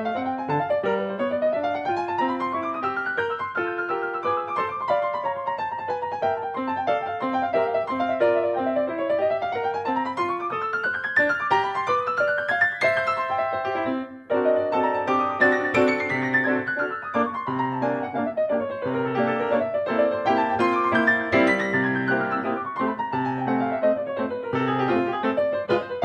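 Background piano music, with flowing runs of notes that sweep up and then back down over and over, and a brief break about halfway through.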